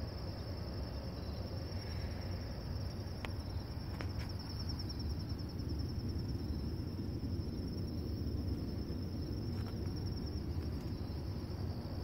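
Crickets trilling steadily in a high, finely pulsing tone, over a low rumble.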